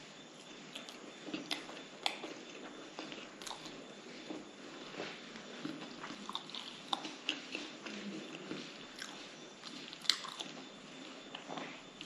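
Close-miked chewing and biting of fried breaded cutlets: wet mouth sounds with scattered crunchy clicks, the sharpest about two seconds in and again about ten seconds in.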